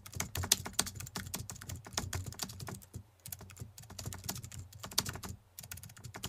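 Typing sound effect: a quick run of key clicks laid under title text typing onto the screen letter by letter, breaking off briefly about three seconds in and again near the end.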